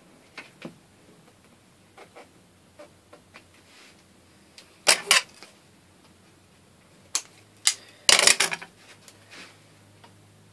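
Handling sounds of taping a shoe at a desk: scattered sharp clicks and short scrapes of tape and scissors, loudest in a pair about halfway through and a quick cluster a couple of seconds before the end.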